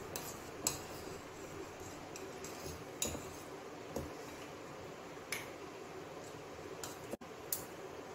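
Serving spoon clinking and scraping against a stainless steel pot while cooked rice is stirred and scooped out, with a handful of sharp, irregular clinks.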